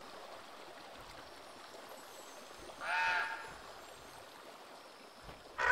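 Steady rush of a forest stream and small waterfall, with a single bird call, about half a second long, about three seconds in. A louder sound breaks in right at the end.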